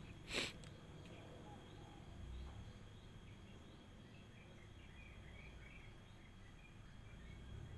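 Faint garden ambience of insects, a steady high thin buzz with small scattered chirps, broken about half a second in by one short sharp swish of noise.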